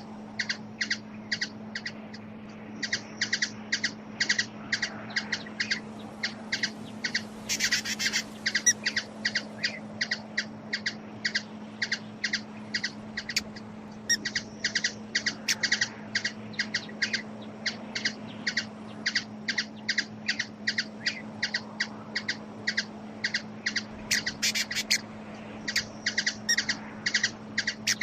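Hummingbird giving a long series of short, sharp chip calls, about two to three a second, with brief pauses. A steady low hum sounds underneath.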